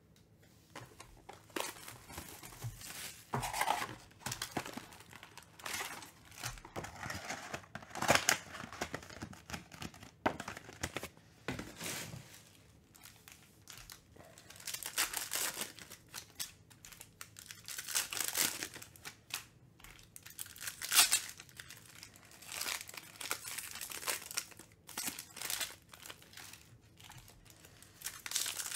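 Foil wrappers of Panini Mosaic football card packs crinkling in irregular bursts as the packs are handled and torn open.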